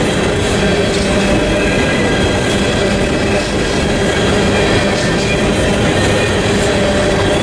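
Empty coal gondolas of a freight train rolling past: a steady rumble of steel wheels on the rails.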